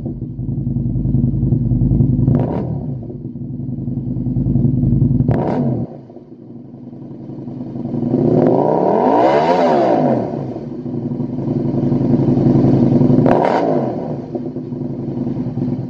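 Aprilia RSV1000's V-twin running through a Lextek MP4 aftermarket silencer. It idles between three quick throttle blips, and one longer rev about halfway through climbs and falls back to idle.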